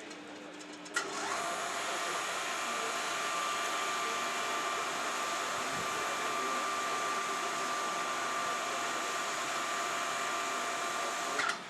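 A machine running steadily, giving a high whine over a hiss. It starts abruptly about a second in and cuts off just as abruptly near the end.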